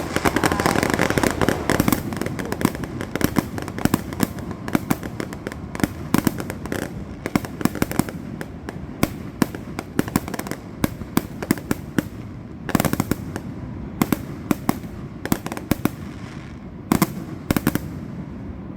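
Fireworks going off in a rapid barrage of bangs and crackles, densest at the start and thinning out, with a few louder bangs later on.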